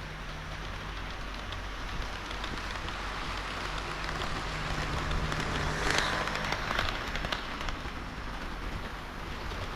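HO-scale model of a KiHa 40 and KiHa 58 diesel railcar set running on the layout track: a steady rolling hiss of wheels on rail with a low motor hum, growing louder with a rush of fine clicking about halfway through.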